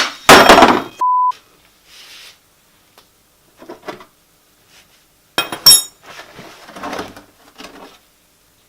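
A 17mm wrench working a car's oil drain bolt loose. A loud burst of noise comes at the start, then a short pure beep about a second in. A few sharp ringing metal clinks follow about five and a half seconds in, then faint scraping.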